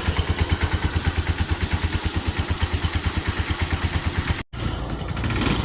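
Honda TMX 125 single-cylinder four-stroke engine idling evenly, about ten firing pulses a second, running on a battery-operated CDI fitted to get around a faulty stator primary coil. The sound cuts off suddenly about four and a half seconds in, and a steadier hum follows.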